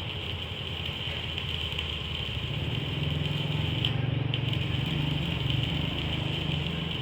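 Engine running steadily with a low hum and a high whine over it, growing somewhat louder about two and a half seconds in.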